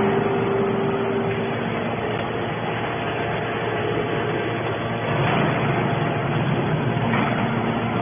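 Hydraulic scrap metal baler running: a steady, dense mechanical noise from the machine and its hydraulic power unit, getting a little louder about five seconds in.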